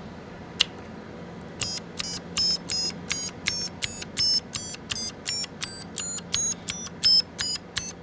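Preonic mechanical keyboard playing music through its built-in speaker in the firmware's music mode: short, high-pitched electronic beeping notes of changing pitch, about three to four a second, one for each key pressed. A single click comes first, about half a second in.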